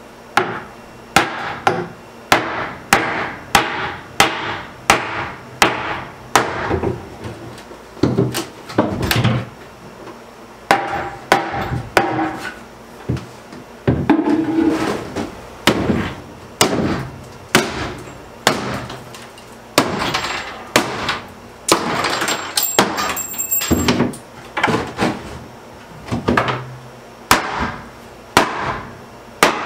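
Hammer blows knocking apart wooden wall cabinets: a long run of sharp strikes, about two a second, with a few longer, noisier stretches of wood being worked loose in the middle.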